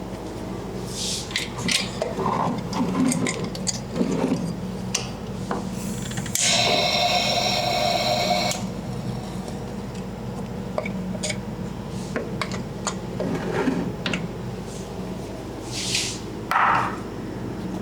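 Close-up ASMR handling sounds: scattered clicks, taps and scraping, with a steady buzz lasting about two seconds some six seconds in, over a low steady hum.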